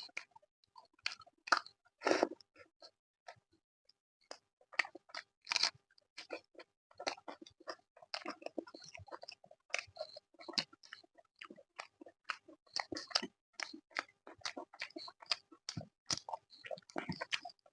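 A person chewing and biting mouthfuls of chicken curry, rice and naan close to the microphone, with a dense run of short wet mouth clicks and smacks and a louder crunching bite about two seconds in.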